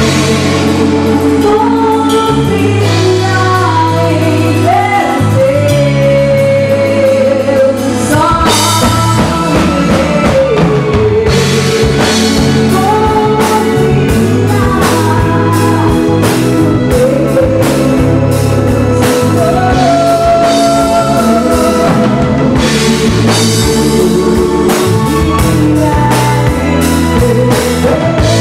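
Live praise band playing a song: a woman sings the lead melody over drum kit, electric bass and acoustic guitar, at a steady loud level.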